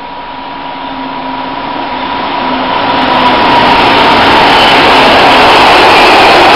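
Two Vossloh G2000 BB diesel-hydraulic locomotives hauling a freight train of spoil wagons, approaching and passing close by. The diesel engines and rolling wheels grow steadily louder over the first four seconds, then stay loud as the wagons roll past.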